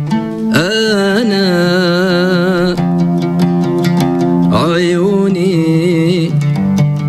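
A man singing in Arabic to his own oud accompaniment: two long held phrases with a wavering vibrato, the first starting about half a second in and the second about halfway through. Plucked oud notes run under and between the sung lines.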